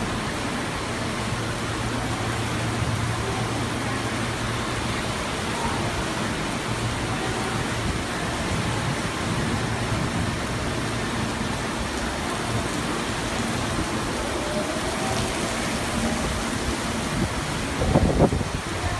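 Torrential rain from a sudden summer cloudburst pouring down as a steady, even hiss, over a low steady hum. About a second before the end there is a brief loud low thump.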